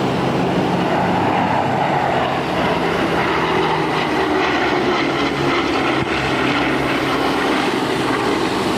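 Boeing B-29 Superfortress's four Wright R-3350 radial piston engines and propellers droning steadily as the bomber flies past.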